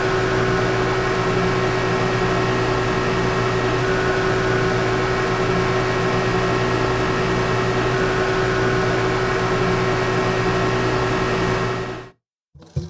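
Motorcycle engine running at a constant speed: a steady drone with an even noise over it and no change in pitch, cutting off abruptly about a second before the end.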